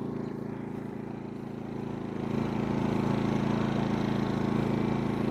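GENMAX GM2000i inverter generator's small engine running steadily in eco mode, a low even hum that grows a little louder about two seconds in.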